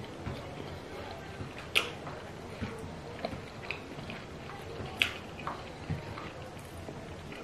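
Close-up eating sounds of two people eating fufu and pepper soup by hand: wet chewing, lip smacks and finger-sucking, with two sharp smacks about two seconds and five seconds in.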